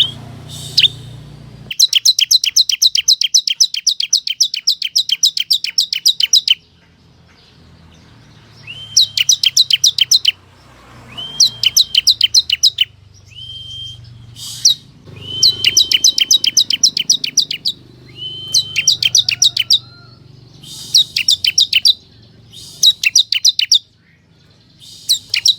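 Ciblek kristal (a prinia) singing: repeated bouts of rapid, sharp high chirps, about five a second. Each bout opens with a short, lower steady note, and short pauses fall between the bouts.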